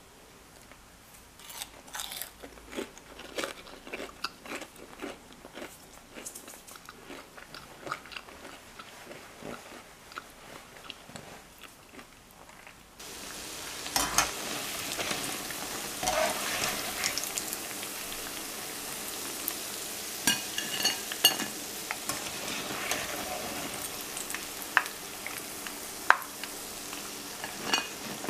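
Crunching of crisp fried doughnuts, in irregular crackles. About halfway through, this gives way to doughnuts deep-frying in hot oil: a steady sizzle with scattered pops and crackles.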